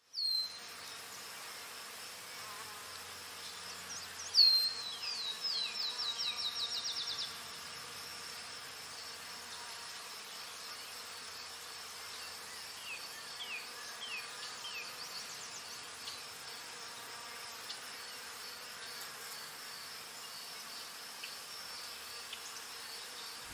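Forest ambience: a steady high-pitched insect drone, with a bird's run of quick down-slurred whistled notes about four seconds in that come faster and faster for about three seconds, and a few fainter down-slurred notes later on.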